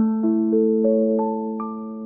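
Background music: a gentle, slow arpeggio of bell-like, sustained notes on a mallet instrument or keyboard, with a low note struck at the start and a new note added roughly every third of a second.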